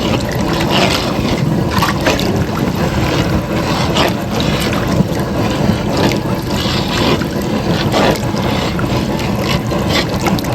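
Rice and broth being stirred in a large jambalaya pot, with strokes every second or two, over a steady rushing noise.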